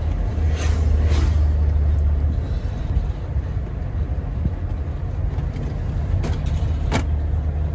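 Moving vehicle heard on board: a steady low rumble of engine and road noise, with a few brief clicks or knocks.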